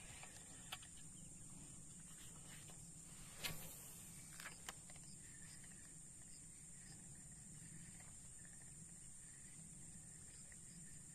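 Faint, steady high-pitched drone of insects such as crickets, with a few soft clicks, the sharpest about three and a half seconds in.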